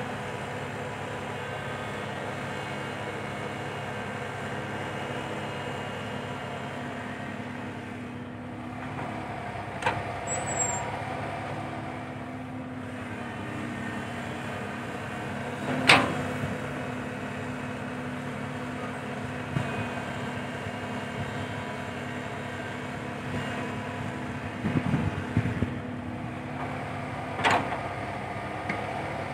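Komatsu PC120-5 hydraulic excavator's diesel engine running steadily under working load as it digs and swings, with a few sharp metallic knocks from the bucket and boom linkage and a short rattling stretch near the end.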